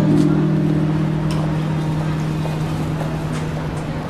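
Background music: a low sustained chord held for about four seconds, slowly fading.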